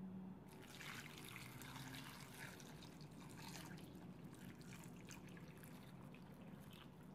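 Water poured in a thin stream into a glass bowl of dried shiitake mushrooms, faintly splashing and trickling as it fills the bowl to soak them. The pour starts about half a second in and runs almost to the end.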